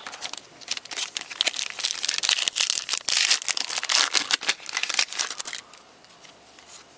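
Foil wrapper of a 2010 Topps Platinum football card pack crinkling and tearing as it is opened, a dense crackle for about five and a half seconds that then dies down.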